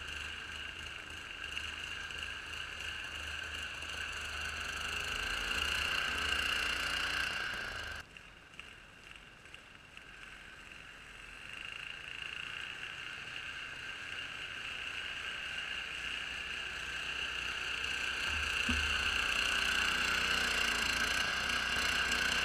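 Homemade Craftsman 6x4 garden tractor running under load while pushing snow with a front blade, a steady engine and drivetrain whine. It drops suddenly about a third of the way in, then grows louder again as the tractor comes close near the end.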